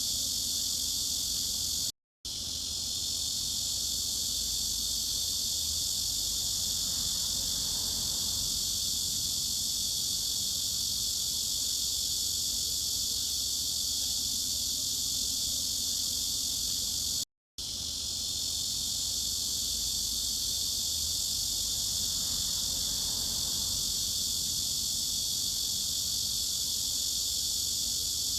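Cicadas buzzing in a dense, steady, high-pitched drone. The sound cuts out for a split second twice, about fifteen seconds apart, then picks up again.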